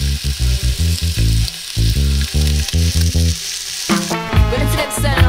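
Bacon and an egg sizzling in non-stick frying pans, over music with a pulsing bass line. About four seconds in, the sizzle stops and music with a singing voice takes over.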